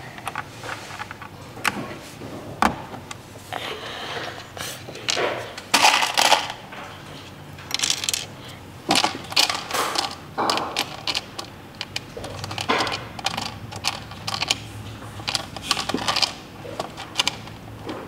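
Small hard plastic keyboard parts clicking and clattering as mechanical switches and keycaps are handled and fitted onto a keyboard. The clicks and short rattles come irregularly, in busier clusters about five seconds in and again from about eight to eleven seconds in.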